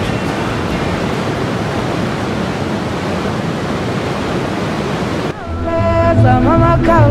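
Mountain waterfall rushing steadily, white water pouring over rocks. About five seconds in, music with singing starts over it.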